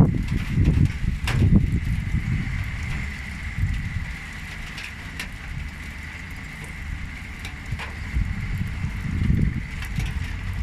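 Excavator's engine running with a low rumble, louder in the first two seconds and again briefly near the end, over a steady high whine, with a few sharp knocks.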